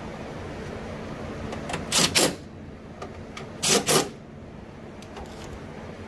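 Hand tools clacking: two quick double clacks, the second pair about a second and a half after the first, over a steady low hum.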